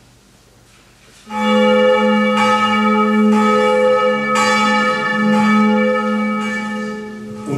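Bronze church bell ringing, struck again about once a second, starting about a second in with a deep steady hum under bright, lingering overtones.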